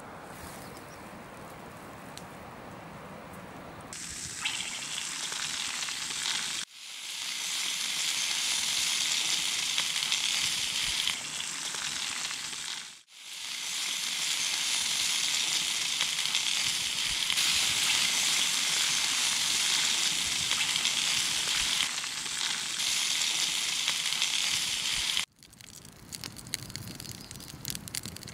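Brook trout frying in a pan over a campfire: a loud, steady sizzle. It cuts out sharply twice and stops abruptly near the end, leaving quieter fire crackle. A softer background hiss comes before the sizzle, in the first few seconds.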